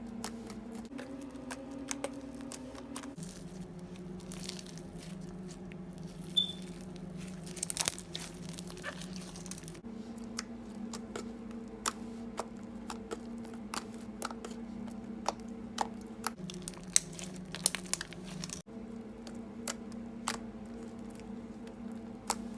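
Slime being squished and stretched by hand: scattered crackles and small pops over a steady low hum.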